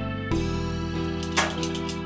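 Background music: plucked guitar chords over a steady bass, with a few light percussion hits.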